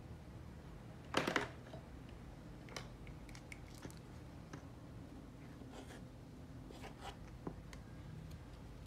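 Plastic measuring cup and spoons being handled: a brief rattling clatter about a second in, then scattered light clicks and taps.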